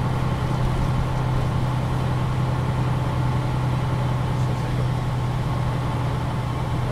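Diesel engine of a MAN NG 313 articulated bus running with a steady, unchanging low hum, heard from inside the bus.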